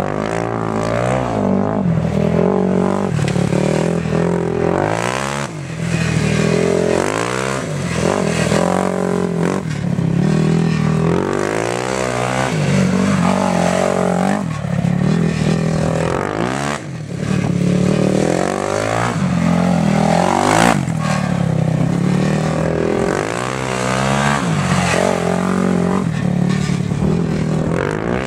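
Yamaha YFZ450 quad's single-cylinder four-stroke engine revving up and dropping back again and again, rising sweeps every second or two, as the rider goes on and off the throttle.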